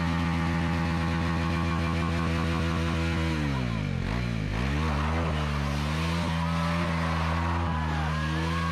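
Motorcycle engine held at high revs during a burnout stunt, the rear tyre spinning the bike round in circles on dirt. About halfway through the revs drop away and climb back, then hold steady again.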